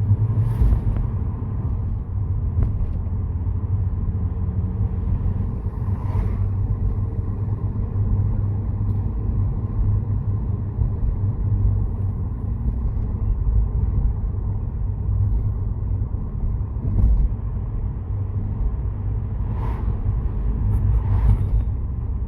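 Ford Focus ST225's turbocharged five-cylinder engine and road noise heard from inside the cabin while driving, a steady low drone. The exhaust is a resonated cat-back, described as quite quiet.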